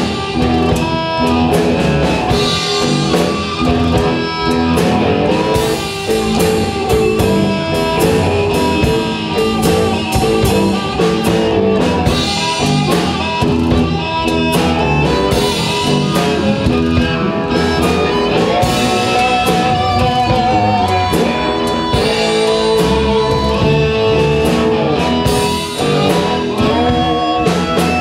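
Live blues band playing an instrumental passage: amplified cigar box guitars and harmonica over a drum kit keeping a steady beat. A wavering held note comes in about two-thirds of the way through.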